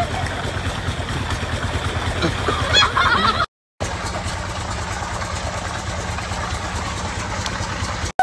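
An engine running steadily with water churning over it; a short high voice or laugh comes just before the sound cuts out for a moment, then the same steady engine hum resumes.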